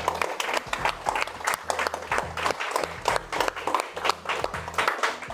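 Applause: a dense, fast run of hand claps, thinning out near the end.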